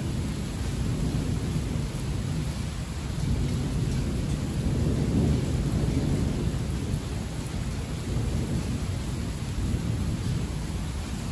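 Thunder rumbling low under steady heavy rain, swelling to its loudest about five seconds in and then easing off.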